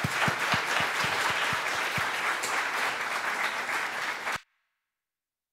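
Audience applauding, many hands clapping together; the applause cuts off suddenly a little over four seconds in.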